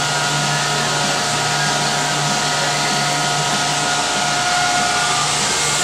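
TIG welding on sheet steel: a steady hiss with a constant whine over it from the TIG welder and its arc, and a low hum that fades about four seconds in as the arc stops.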